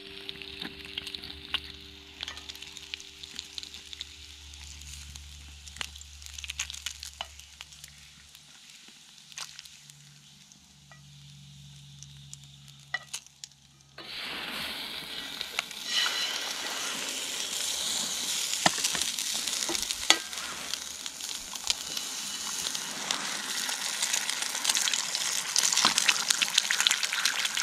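Bacon fat sizzling in a cast-iron skillet over a small wood stove, with occasional clicks of metal tongs against the pan. About halfway through the sizzle turns suddenly much louder and fuller as eggs fry in the hot fat.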